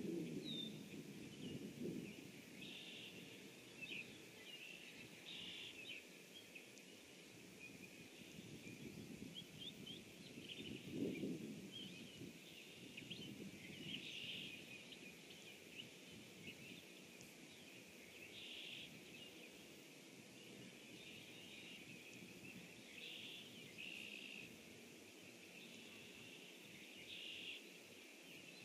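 Faint wetland ambience: distant songbirds calling and singing in short chirps and trills over a steady hiss. A low rushing noise swells at the start and again about eleven seconds in.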